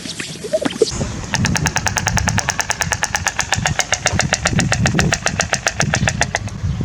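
Stork clattering its bill: a rapid, even rattle of sharp wooden-sounding clacks that starts about a second in and lasts about five seconds.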